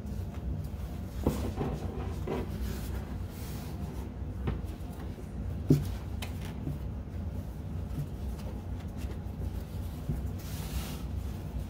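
T-shirt fabric being rubbed and shifted across a wooden tabletop as it is smoothed flat, with soft rustling and a few light knocks, the sharpest about a second in and just before the middle. A steady low hum runs underneath.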